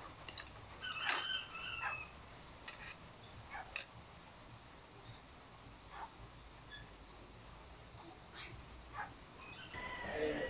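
A small bird chirping rapidly, short high chirps that fall in pitch at about four or five a second, with a few louder chirps and clicks mixed in.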